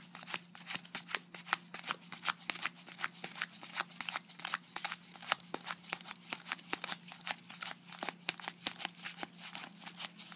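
Match Attax trading cards being flicked off a stack one at a time as they are counted: a quick, even run of light paper snaps and slides.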